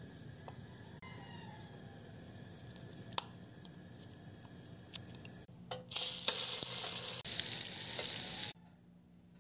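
Egg-coated meatloaf slices sizzling loudly in hot oil in a frying pan. The sizzle starts about six seconds in and cuts off abruptly two and a half seconds later. Before it there is only a low steady background with one sharp click about three seconds in.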